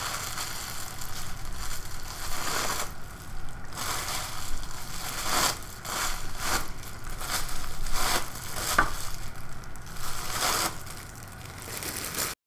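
Crumpled sheet of fairly thick plastic wrapping, loaded with paint, crinkling as it is pressed and dabbed again and again onto a painted canvas, in a string of irregular crackly bursts. The sound stops abruptly near the end.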